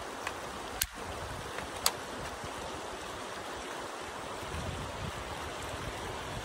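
Steady rush of a shallow river with sharp metallic clicks from an AK-47 rifle being handled as its magazine is taken off. There is a faint click, then two louder ones about a second apart, all within the first two seconds.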